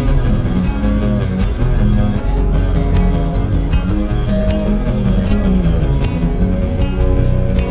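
Background music with guitar playing steadily.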